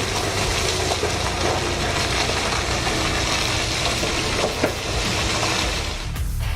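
Heavy engine of a BelAZ 75710 mining dump truck running steadily, with a low rumble under a broad hiss. Near the end it gives way to music.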